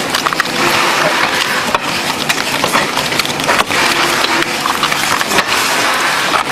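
Playing cards and paperboard card boxes being handled fast by hand: a dense crackle of clicks and rustling.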